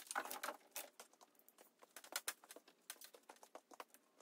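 Faint, irregular clicks and taps of small hard objects being handled, with a quick cluster of them right at the start.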